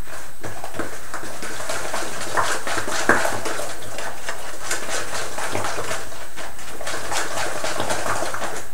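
Wet squelching and sloshing of banana-bread batter (flour, cocoa, mashed bananas and water) being mixed by hand in a ceramic bowl, with many small irregular clicks and smacks throughout.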